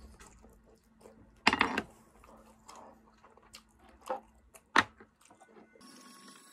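Someone eating from a ceramic bowl with wooden chopsticks: soft chewing, a louder short noise about one and a half seconds in, and two sharp clicks of the chopsticks against the bowl a little past the middle.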